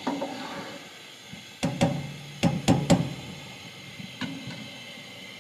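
Metal slotted spoon knocked against the rim of a metal cooking pot. A quick run of about five sharp clanks comes between two and three seconds in, and one more a little after four seconds. Under it runs the steady hiss of the stock boiling with rice in it.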